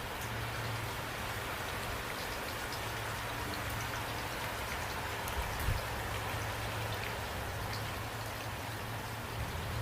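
Steady rain falling, individual drops heard as small ticks over an even hiss, with a low steady rumble underneath. A single soft thump comes a little past halfway.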